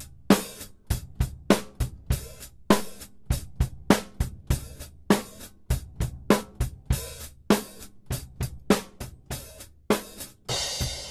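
Recorded drum kit playing a steady beat of kick, snare and hi-hat, the snare layered with a sampled acoustic snare from Logic's EXS24 sampler, its dynamics pushed up for a beefier sound. A cymbal crash comes in near the end.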